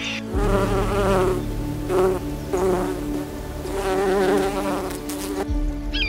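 A flying insect buzzing in several wavering bursts, which stop abruptly about five and a half seconds in.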